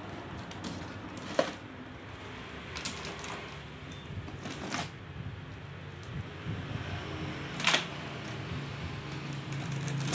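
Bundles of fire-extinguisher hoses with metal end fittings being handled in a cardboard box and set down, giving about four sharp clacks among light rustling, over a steady low hum.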